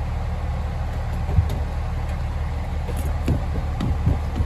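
Freight train rolling past, a steady low rumble with a few short knocks from the cars.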